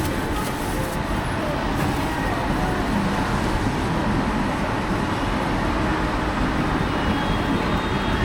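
Steady street background noise: traffic with faint voices in the distance.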